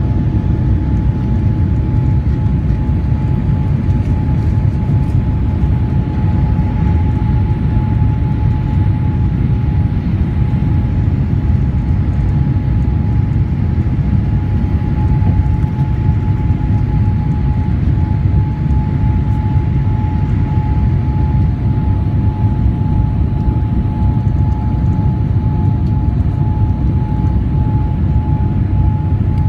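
Boeing 787's GEnx turbofans at takeoff thrust, heard from inside the cabin: a loud, steady low rumble with a constant thin whine above it, through lift-off and the initial climb.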